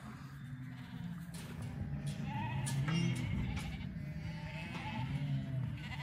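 A mob of sheep bleating, many calls overlapping, loudest about halfway through.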